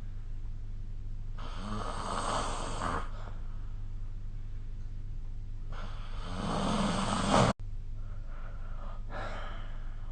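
A sleeping person snoring: three noisy snoring breaths about three seconds apart, the second the loudest and breaking off abruptly. A steady low hum lies beneath.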